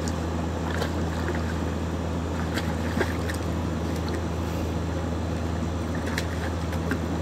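Great Pyrenees puppy paddling in a stock tank of water, making a scattering of short splashes and sloshes. A steady low hum runs under it.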